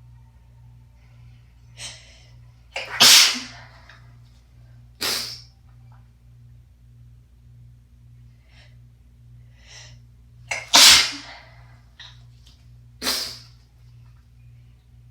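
A person with a head cold sneezing four times, rough, congested and messy: a pair of sneezes about two seconds apart, then after a pause another pair, with short quieter breaths in between.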